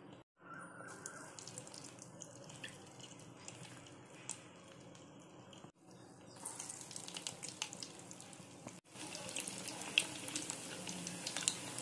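Urad dal vadai deep-frying in hot oil in a kadai: a faint bubbling sizzle with small crackles that grows louder and busier in the second half as more vadai fry.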